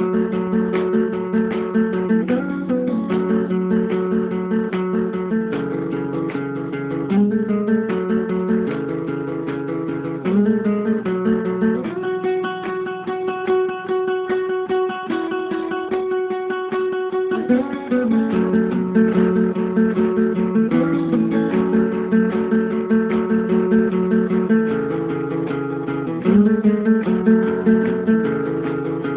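Acoustic guitar music, strummed chords played in a steady run. About twelve seconds in, one chord is left ringing for around five seconds before the strumming resumes.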